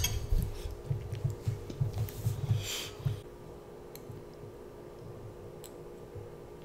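A metal spoon clinks against a ceramic bowl right at the start, followed by a child's soft eating and handling noises (low knocks and a brief scrape) over the first few seconds. After that it goes quiet, with only a few faint ticks over a steady low hum.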